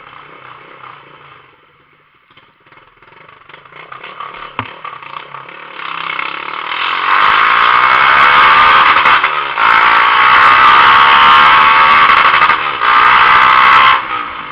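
Motorcycle running on an open exhaust, just the bare pipe with no muffler. It is moderate at first, grows louder from a few seconds in, and is very loud and sustained for about seven seconds before dropping off near the end.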